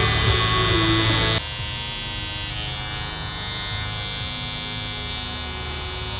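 Electric hair clipper running with a steady buzz that drops noticeably in level about a second and a half in.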